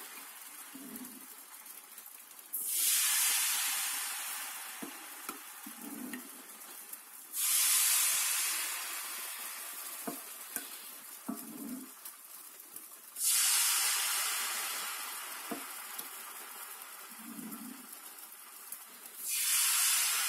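Pancake batter poured from a ladle into a hot six-well pancake pan, sizzling sharply each time it hits the metal: four pours a few seconds apart, each hiss fading slowly. Light knocks sound between pours.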